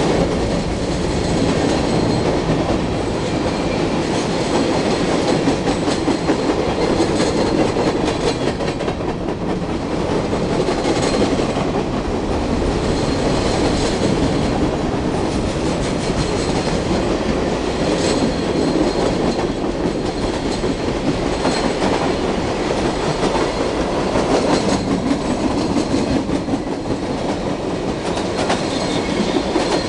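Freight cars of a CSX train rolling past close by: steel wheels clattering over the rail joints in a steady, unbroken rumble.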